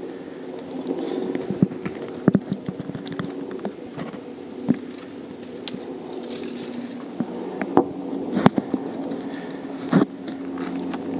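Steady droning hum of an AC-130 gunship's turboprop engines overhead. Many short sharp clicks and crackles sound over it.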